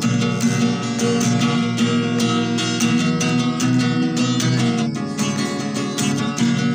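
Acoustic guitar strummed in a quick, even rhythm, chords ringing throughout.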